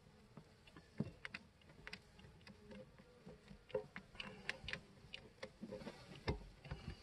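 Scattered clicks and knocks of a metal syrup feeder can being worked loose from a tight-fitting plastic bee package, the sharpest knocks about a second in, midway and near the end. A faint hum of the packaged honey bees runs underneath.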